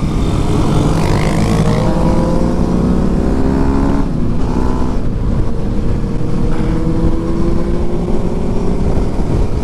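Motorcycle engine pulling under acceleration, its pitch rising steadily, dropping at a gear change about four seconds in, then rising again.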